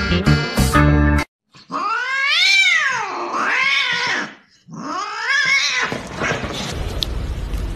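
Domestic cat giving three long, drawn-out yowling meows, each rising and then falling in pitch. Strummed guitar music plays before them and cuts off about a second in.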